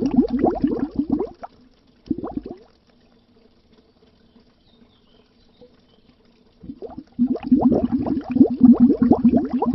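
Bubbles rising underwater, a dense stream of quick rising bubble chirps. The bubbling stops about a second and a half in, comes back in a short burst, then pauses for several seconds before resuming near the end.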